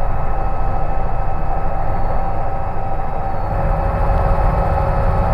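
Robinson R66 helicopter in forward flight, heard from inside the cabin: a steady drone of rotor and Rolls-Royce RR300 turbine with a few fixed whine tones over a low rumble, which grows a little louder near the end.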